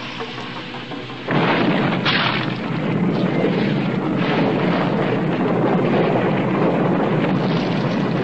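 Cartoon sound effect: a low, steady hum with held tones, then about a second in a loud rumbling roar starts suddenly and carries on steadily.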